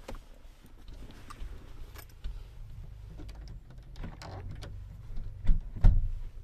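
Rear passenger door's interior handle being worked on a 2003 Toyota Kijang LGX: small clicks and rattles of the handle and latch, then two heavier clunks near the end, over a low rumble.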